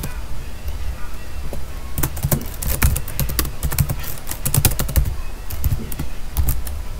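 Computer keyboard typing: quick runs of keystroke clicks with short pauses between, sparse at first and denser from about two seconds in.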